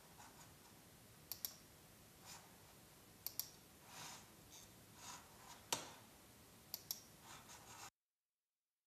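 Faint computer mouse clicks: single clicks and quick double clicks a few times, with softer brief noises between them. The sound cuts out to complete silence near the end.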